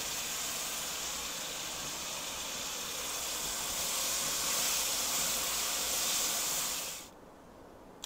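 Sauce sizzling in a hot nonstick skillet full of freshly fried, cornstarch-coated chicken pieces: a steady hiss that swells slightly and then cuts off about seven seconds in.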